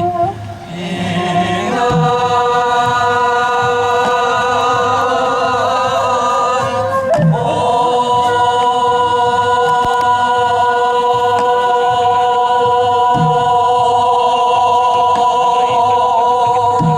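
Sijochang, Korean classical sung poetry, sung by a group of voices in unison, holding long, steady notes; the voices break and move to a new held note about seven seconds in.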